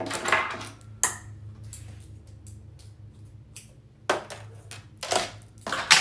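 Irregular clicks, clinks and short rustling clatters of a wig cap and lace closure being handled and turned at a Singer sewing machine to sew the other side, over a low steady hum. The loudest clatters come at the start, about a second in, and in a cluster near the end.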